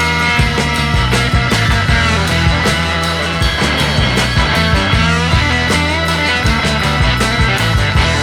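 Background music: an upbeat rock track with guitar and a steady drum beat.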